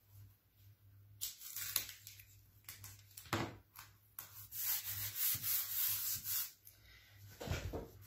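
Masking tape being handled and pressed down onto paper on a board: a few crackling pulls of tape, then a couple of seconds of hands rubbing the tape flat, and a dull thump near the end.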